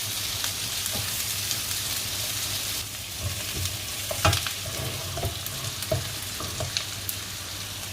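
Sliced onions sizzling as they sauté in hot oil in a pan. From about three seconds in, a utensil knocks and scrapes against the pan as they are stirred, loudest just after four seconds.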